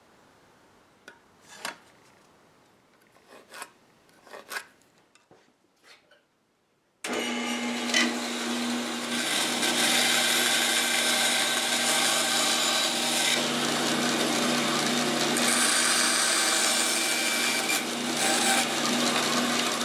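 A few faint taps, then about seven seconds in a bandsaw comes in suddenly, running steadily with a low hum while it cuts a small block of wood to make a patch.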